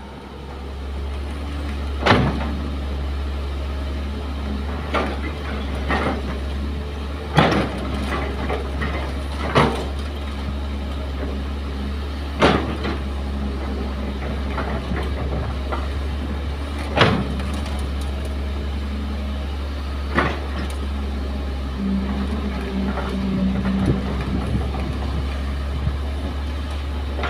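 Kobelco SK200 hydraulic excavator's diesel engine running steadily as it digs into an earth bank, with sharp knocks every few seconds from the bucket and boom working.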